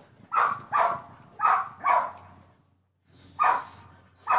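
A dog barking repeatedly, the barks coming in quick pairs. The sound drops out completely for a moment about three seconds in.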